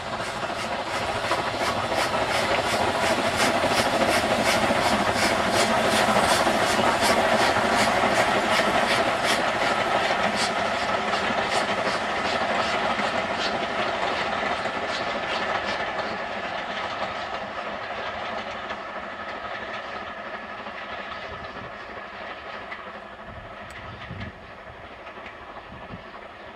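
Two steam locomotives double-heading a passenger train, working hard with a quick, even beat of exhaust chuffs. The sound grows louder for the first several seconds, then fades steadily as the train draws away.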